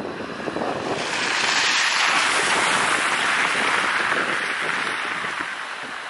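A vehicle passing on the wet, slushy street: a hiss that swells about a second in, holds for a few seconds and fades away.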